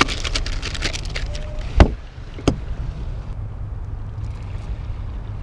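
Plastic bait packets rustling and crinkling as hands dig through a boat's storage compartment, then a heavy thump a little under two seconds in and a sharp click just after. A steady low rumble runs underneath.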